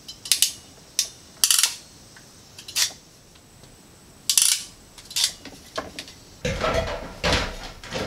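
Sharp metallic clicks and snaps of a hand wire crimper closing on wire connectors, about half a dozen separate clicks spread over the first five seconds. Near the end, a louder and longer rough clatter.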